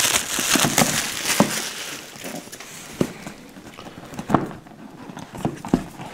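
Plastic shrink wrap crinkling as it is pulled off a board game box, then a few light knocks and taps of hands handling the cardboard box and its lid.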